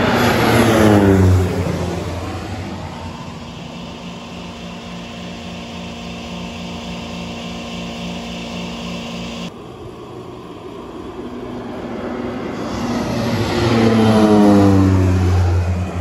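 Single-engine crop-dusting plane passing low overhead twice. Its engine and propeller noise swells and drops in pitch as it goes by about a second in, runs on fainter and steady, then swells and drops in pitch again as it passes near the end.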